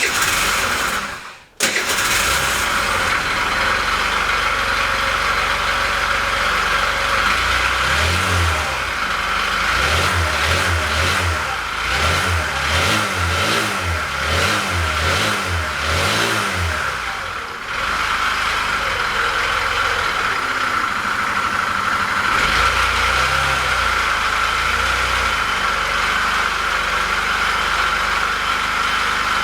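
Four-stroke scooter engine started just under two seconds in, then running. From about 8 to 17 seconds it is revved again and again, with a brief dip near 17 seconds before it settles back to a steady idle. The engine runs with misfires and a knock, which the owner suspects come from failed camshaft bearings.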